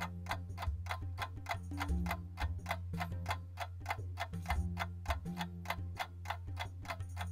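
Clock ticking fast and evenly, several ticks a second, over quiet low background music.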